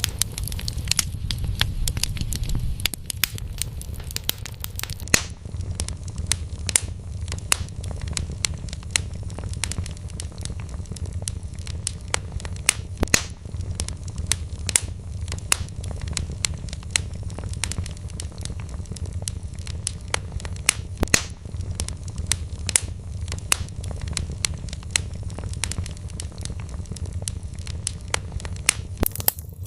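Wood fire burning in a fireplace: irregular sharp crackles and pops of burning logs over a steady low rumble of the flames.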